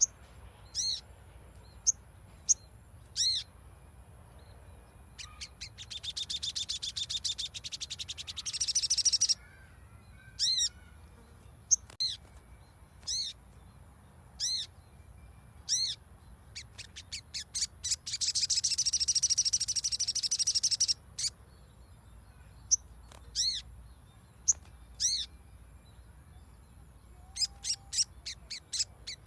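Sogon (sogok ontong) calling: single short, high chip notes about a second apart, broken twice by long, fast rattling trills, played as a lure recording to set a captive sogon singing.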